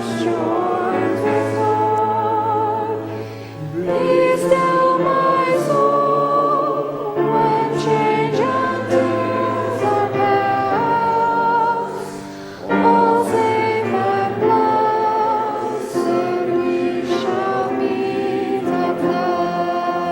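Women's choir singing a slow sacred anthem with vibrato, over a sustained low cello line. The music draws to a close near the end.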